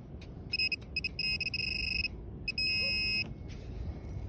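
XP MI-4 metal-detecting pinpointer beeping. It gives a few short beeps, then a quick run of beeps, then a steady tone about three seconds in, which signals that its tip is right on a buried metal target in the sand.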